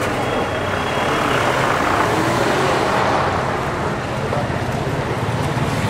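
Road traffic noise: a steady wash of vehicle noise with a low engine hum that grows a little stronger in the second half.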